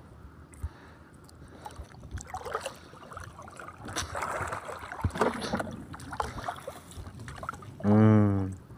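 Water splashing and dripping as a fishing net and its float line are hauled by hand up out of shallow sea water. Near the end comes a short, loud hum or grunt from a man's voice.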